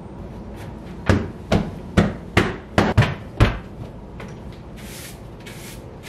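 A quick run of seven sharp knocks or bangs, about two a second, then two short hisses near the end.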